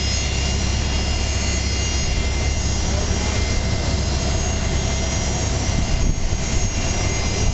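Airbus A330-200 jet engines running steadily as the airliner taxis: a loud, even rumble with a high turbine whine over it.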